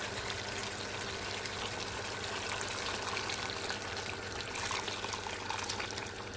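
Hot water poured steadily from a glass bowl into a wok of browned meat, splashing into the pan and easing off near the end.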